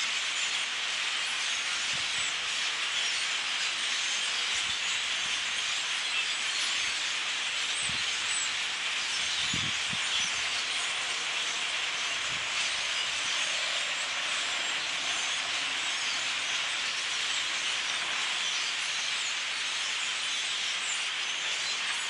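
A huge flock of birds calling all at once: a dense, steady chatter of countless overlapping chirps.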